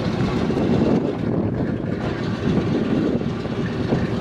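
B-17 Flying Fortress's Wright R-1820 Cyclone radial engines running with a steady, rough rumble.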